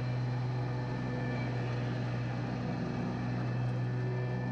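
Lawn mower engine running steadily at a constant speed.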